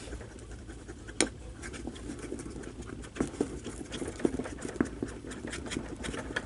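Orange plastic spoon stirring a thick slime mixture in a ceramic bowl: irregular small scrapes and taps against the bowl, with a slightly sharper knock about a second in.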